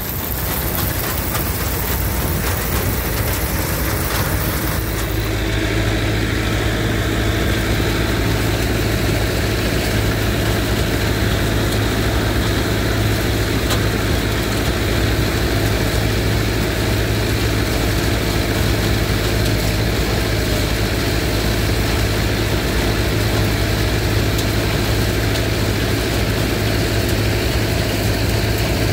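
An engine running steadily, with a low hum that stays even after a change about five seconds in.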